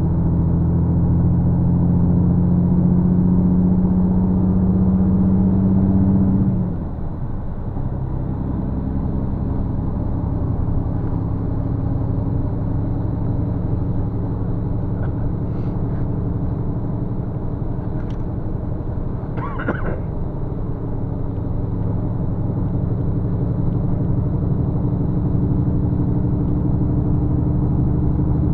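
Bus engine running under way, with tyre and road noise, heard from inside the cabin. About six seconds in the engine note drops in pitch and dips in level, then holds steady again. A brief higher-pitched squeak comes about two-thirds of the way through.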